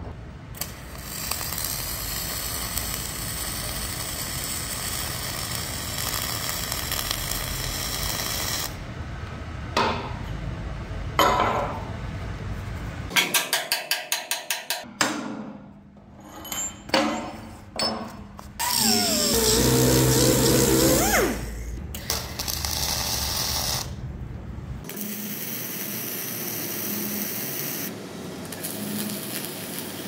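Wire-feed (MIG) welding on the dozer blade's steel plate, a steady crackling hiss. Partway through, the welding stops for a stretch of sharp metal-on-metal strikes, including a quick run of about eight, as steel dogs and wedges are hammered in to clamp the wear skin down to the mouldboard. The welding starts again near the end.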